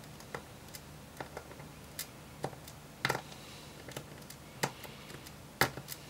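A scattered series of light, sharp clicks and taps: small screws and hands handling the laptop's base panel. The loudest clicks come about three seconds in and again near the end.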